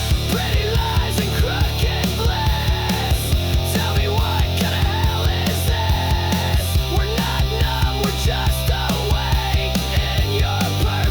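Distorted electric guitars, bass and drums playing an instrumental grunge-rock passage with a steady driving beat; no singing.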